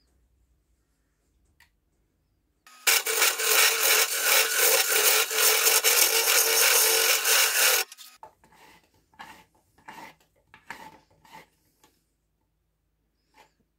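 A hollowing tool cutting inside a spinning monkey puzzle wood vase on a lathe, through the vase's narrow neck: a loud, dense cutting noise that starts sharply a few seconds in and stops just as sharply about five seconds later. After it come scattered light scrapes and taps of the tool against the stopped wood.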